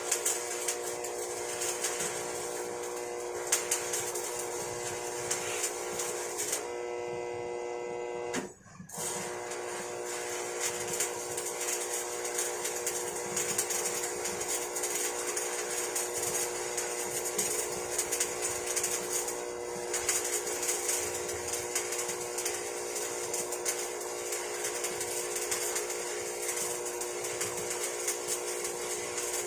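Shielded metal arc (stick) welding on a carbon steel pipe: the steady crackle and sizzle of the electrode arc over a steady electrical hum. About seven seconds in the crackle fades, and the sound cuts out briefly about eight and a half seconds in, as the arc breaks, before welding resumes.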